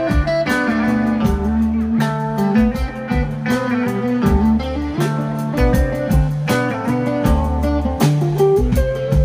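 Live rock band playing an instrumental passage with no vocals: guitar lines over bass and drums, in a riff that repeats about every three seconds.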